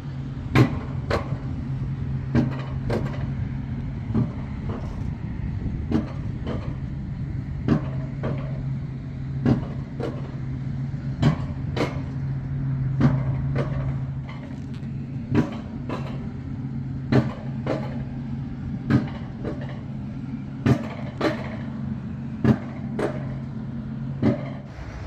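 Mountain coaster cart running along its steel track: a steady low hum with sharp clacks that mostly come in pairs about half a second apart, every second or two, as the wheels cross the track joints. The hum stops just before the end.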